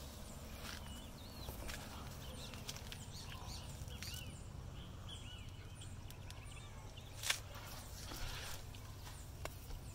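Outdoor garden ambience: small birds chirping over a steady low rumble, with a few short crunches, the loudest about seven seconds in.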